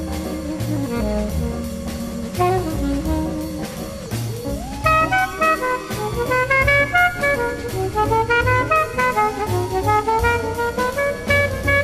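Background jazz music: a brass horn melody with sliding notes over a drum kit beat.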